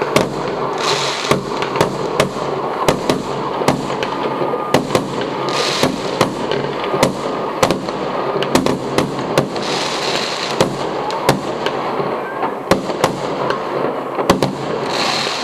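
Fireworks going off in a fast, irregular run of bangs and cracks, several a second, over a constant rumble. Short hissing bursts come about every four to five seconds.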